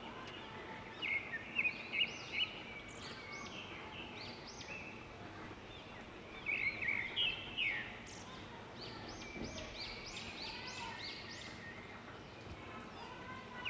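Birds chirping in several bursts of quick, arching high notes, over a faint steady sizzle of chicken pieces frying in hot oil.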